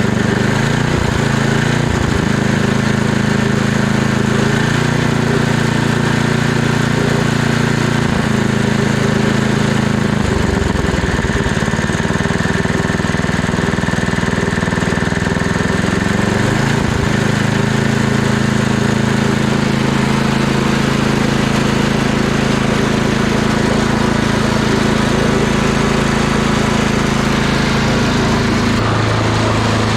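Tecumseh small engine of a Gilson snow blower running steadily after a carburetor cleaning. Its note sags briefly and picks back up a few times, about a third of the way in and again a little past halfway.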